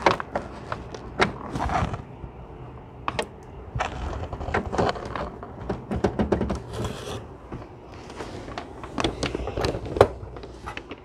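Hands working at a new Canon printer's plastic body: irregular clicks and knocks with a brief rustle of paper or packing about six seconds in.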